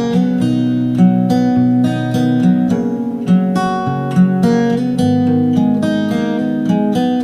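Background music of an acoustic guitar, chords strummed and picked.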